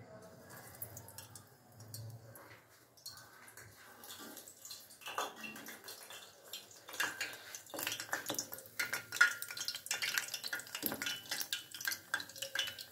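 Frozen McCain Smiles potato shapes frying in hot oil in a kadhai: sizzling and crackling that grows busier about halfway through as they settle in the oil.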